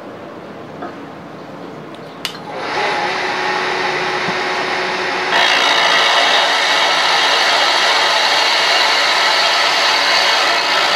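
A click about two seconds in, then the milling machine's spindle starts running; from about five seconds in a 3/4-inch end mill cuts a slot into a metal bar with a loud, steady cutting noise.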